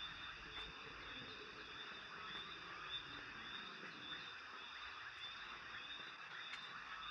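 Faint night chorus of insects and frogs: a steady high trill over a dense background of many small calls.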